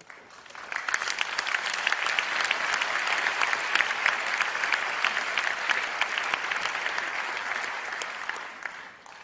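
Audience applauding. The clapping builds over the first second, holds steady, and dies away near the end.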